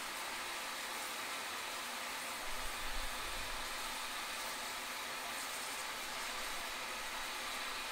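Steady hiss of steam escaping from the front end of a standing SR Schools class 4-4-0 steam locomotive, No. 926 Repton, with a brief low rumble about two and a half seconds in.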